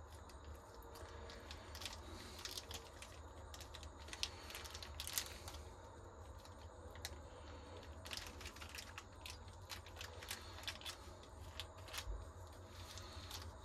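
A leather edge beveler shaving the edges of leather sheath pieces: quiet, irregular scraping strokes with small clicks.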